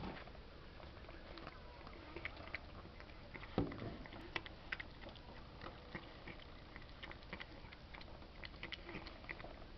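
A cat lapping milk from a china plate: soft, quick, irregular lapping clicks throughout, with one louder thump about three and a half seconds in. The cat is elderly and, by its owner's account, unwell and drinking more and more.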